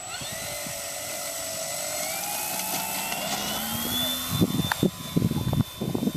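Electric motor and propeller of an FMS P-40 Warhawk RC model whining up to full throttle for take-off, the pitch rising over the first few seconds and then holding steady. From about four seconds in, several loud low thumps sound over the whine.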